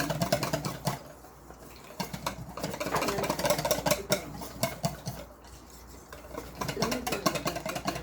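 Batter being whisked by hand in a bowl: rapid clicking of the whisk against the bowl, several strokes a second, in three spells with short pauses between.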